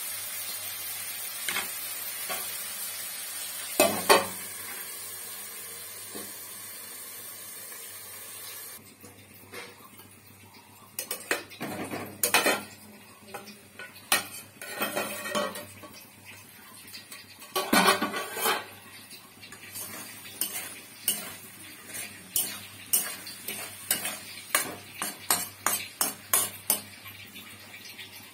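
Metal spatula scraping and knocking against a metal kadai as onions and green capsicum are stir-fried, over a steady sizzle. The sizzle fades about nine seconds in, and the scrapes come quicker near the end, about two a second.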